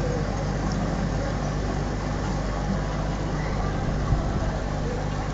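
A steady low mechanical hum, like a motor or pump running, under a haze of background noise, with one soft low thump about four seconds in.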